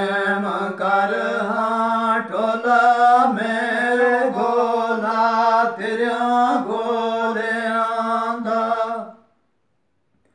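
A man singing a Gojri bait, a folk verse, unaccompanied in a chant-like line held largely on one pitch. The voice breaks off about nine seconds in.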